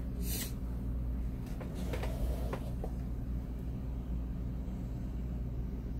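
Laptop booting from a 2.5-inch hard drive: a steady low hum, with a brief rustle just after the start and a few light clicks around two seconds in.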